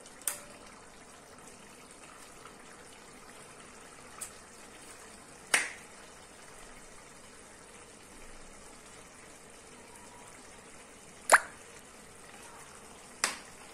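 Pots simmering with a faint steady hiss, broken by a handful of sharp clicks and knocks from kitchen utensils and containers being handled at the stove. The loudest knock comes near the end.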